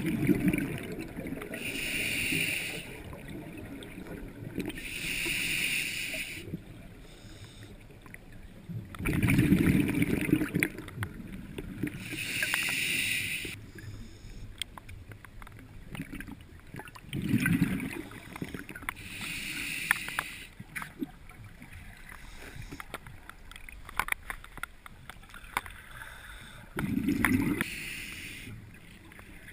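Scuba diver breathing through a regulator underwater: hissing inhalations alternate with low, bubbling exhalations, several breaths a few seconds apart.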